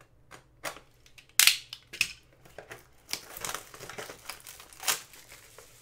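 Plastic shrink wrap being pulled off a small cardboard trading card box, crinkling in irregular crackles, loudest in a sudden burst about one and a half seconds in.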